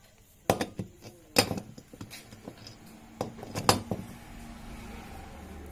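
Metal parts of a Toyota Innova starter motor's housing clinking and knocking together as they are fitted by hand: a run of sharp, irregular strikes over the first four seconds.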